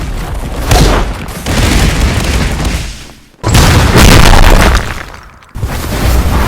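Explosion sound effect: three loud blasts, each a sudden hit followed by a rolling rumble that dies away. The blasts come about a second in, at about three and a half seconds, and near the end.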